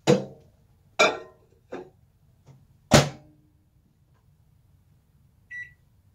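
Microwave oven being loaded and set: four sharp clunks and clacks in the first three seconds, the loudest about three seconds in, then one short high electronic beep near the end.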